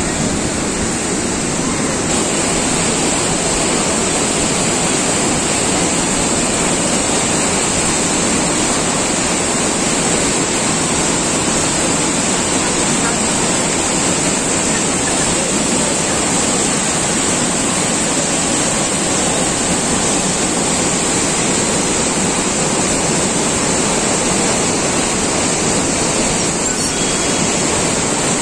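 A river in full flood, muddy and swollen, rushing past: a loud, steady rush of churning water.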